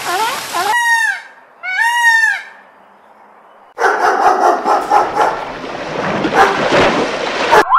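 Two short, loud honking calls, then a dog running through shallow water, a dense run of splashing that lasts about four seconds and cuts off suddenly near the end.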